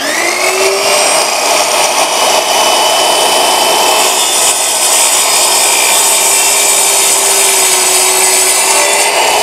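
Electric miter saw switched on, its motor whining up to speed, then running steadily as the blade is lowered and cuts through a wooden board.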